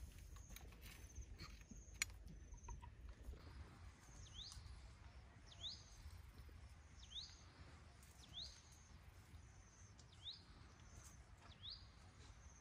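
Faint outdoor background with a bird calling repeatedly: a short, quick upward-sweeping call, about six times at roughly second-and-a-half intervals from about four seconds in. There is a single sharp click about two seconds in.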